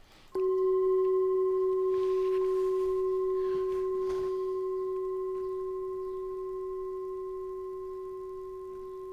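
A single bell-like tone struck once about a third of a second in, then ringing on and slowly fading.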